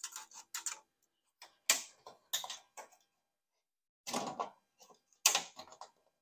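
Hook awl scraping and clicking against the rear-window trim molding and glass while probing for a molding clip, in short irregular bursts.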